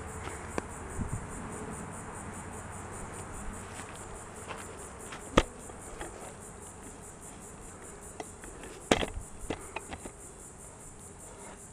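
Insects chirping in a steady, rapid, evenly pulsed chorus. A few sharp clicks cut through it, the loudest about halfway through and another about three-quarters of the way in.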